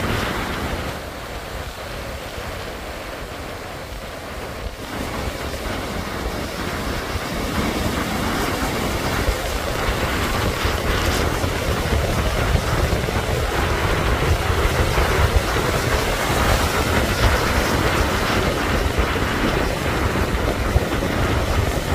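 Ocean surf breaking and washing in, with wind buffeting the microphone in a low rumble; it grows louder a few seconds in.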